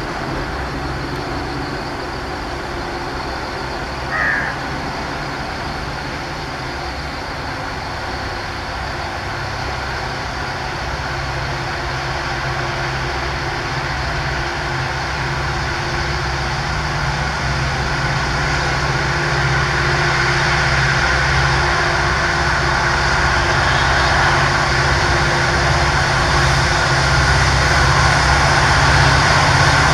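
Twin WDG4 diesel-electric locomotives with EMD 16-cylinder two-stroke engines, working at full throttle to haul a loaded freight uphill. Their deep, steady engine drone grows louder as they approach. A short high chirp sounds about four seconds in.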